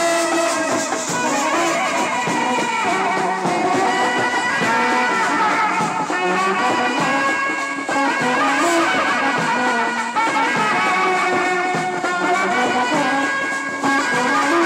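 Brass band playing a tune, with a large valved horn of the euphonium type among the instruments and the horns carrying the melody at a steady loudness.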